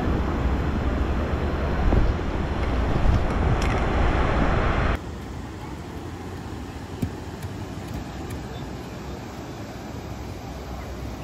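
Wind buffeting the microphone over the rush of beach surf, cutting off abruptly about five seconds in to a quieter, steady rush.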